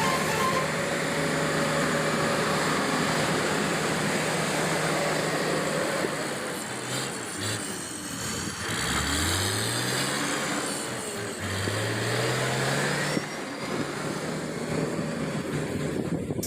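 Diesel engine of heavy road-construction equipment running steadily, revving up twice in the second half.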